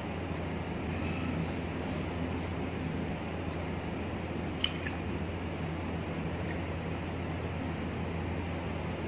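Eggs being cracked on the rim of a ceramic ramekin and tipped into a glass bowl, with a few sharp shell taps, the loudest about halfway through. Under them runs a steady hiss with a low hum, and faint high chirps repeat throughout.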